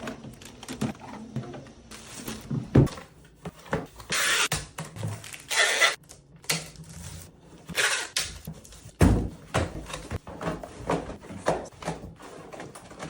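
Packing tape pulled off the roll in three long noisy strips across cardboard boxes, among knocks and thumps of the boxes being handled and closed.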